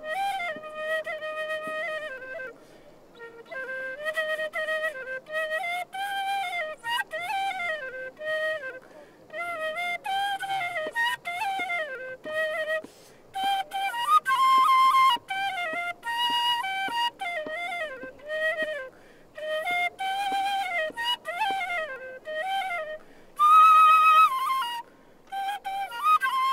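Solo flute playing a slow melody in short phrases separated by brief pauses, with sliding notes and a few held higher notes, the loudest of them a little after halfway and near the end.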